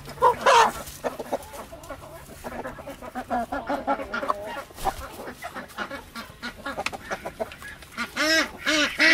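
Flock of chickens clucking and calling, with a loud pair of calls about half a second in and a quick run of repeated calls near the end.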